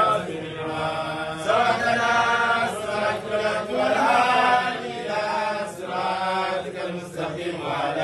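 Men's voices chanting Islamic dhikr in a repeated melodic phrase, a new phrase about every two seconds.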